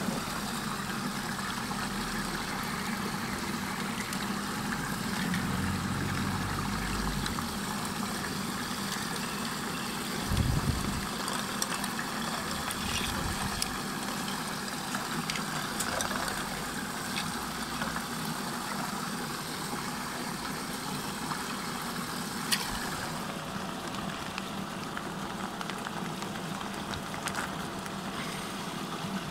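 Water in a whirlpool rushing steadily down a drain hole, with a low hum underneath and a few knocks and splashes as objects drop in.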